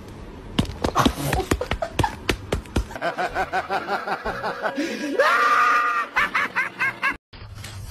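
A dog giving rapid, laugh-like yelping cries at about five a second, then one longer cry that rises at first and then holds, then more quick cries. Before the cries comes a run of sharp clicks or taps.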